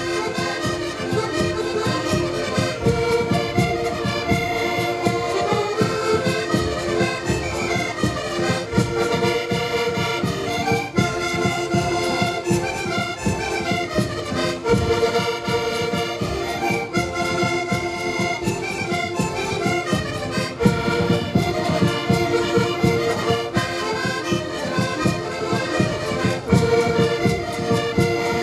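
An ensemble of Portuguese concertinas (diatonic button accordions) playing a folk tune together in chords, with a bass drum (bombo) beating a steady rhythm underneath.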